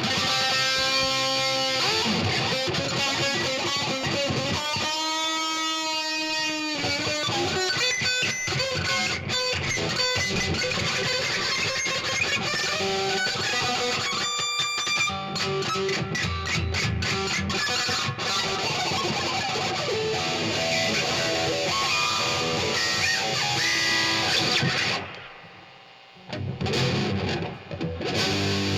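Rock band playing an instrumental passage led by distorted electric guitar with effects, including a long bent, wavering held note. Near the end the sound drops away for about a second, then the band comes back in.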